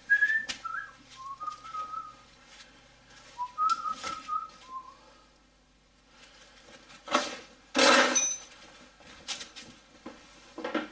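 A man whistling a short tune of held, stepping notes for the first few seconds. This is followed by a few knocks and a louder clatter about eight seconds in.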